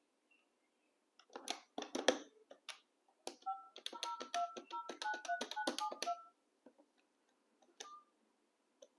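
Keypad buttons of a GSM fixed wireless desk phone pressed to dial a number, each press a click with a short two-tone DTMF beep, in a quick run from about three and a half seconds in to about six seconds. A few plain key clicks come before it, and a short single beep near the end.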